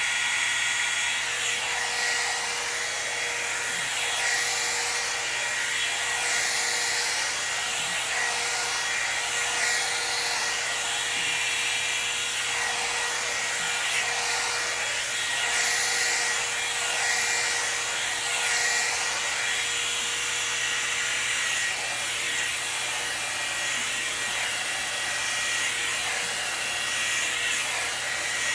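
Hot-air blow dryer brush running steadily: a fan motor's whine under a rushing air hiss that swells and fades every second or two.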